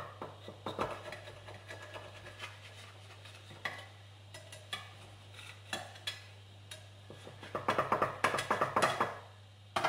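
A kitchen knife's metal blade run around the inside edges of a glass baking dish to loosen a baked sponge cake: scattered taps and scrapes against the glass, with a quick run of scraping strokes near the end.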